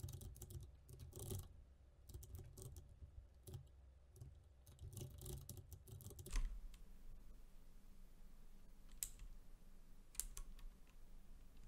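Faint computer-keyboard typing: quick runs of keystroke clicks for about six seconds, then a few isolated keystrokes near the end.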